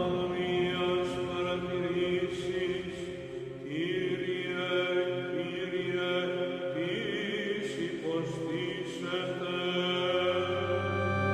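Background music: sustained, chant-like synthesizer pads with chords that change every few seconds.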